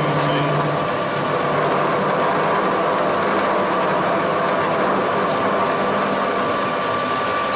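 Hafco HM 54GV milling machine running, its end mill side-cutting an aluminium block in a steady pass. The cut is lubricated with kerosene and sounds as a continuous high whine over a steady cutting hiss.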